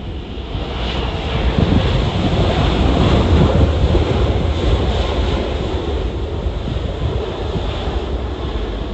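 Jet airliner passing, its engine noise swelling over the first few seconds and then slowly fading, with gusty wind buffeting the microphone.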